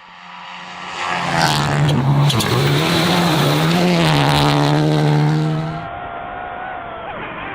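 Rally car at speed on a gravel stage: the engine note swells loud about a second in, with the hiss of tyres and gravel over it, and briefly dips twice as the throttle eases. A little before the end it cuts off suddenly to a quieter engine sound.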